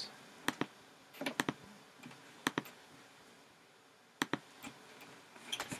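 Faint, scattered sharp clicks from a laptop's keys and mouse, singly and in quick pairs and threes with short gaps between.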